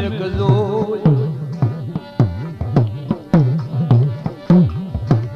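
Instrumental break in a Gujarati devotional folk song (dakla): a dakla drum struck in a quick rhythm, its low strokes sliding in pitch, after a held note fades out about a second in.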